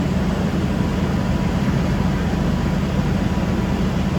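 Car engine idling steadily with the air conditioning running: a constant low hum under an even rushing noise.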